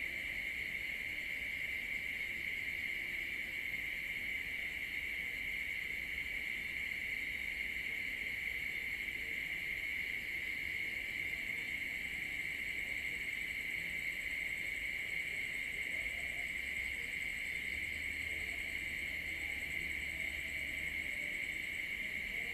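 Steady, high-pitched chorus of crickets and other night insects trilling without a break, with a fainter, thinner trill higher up.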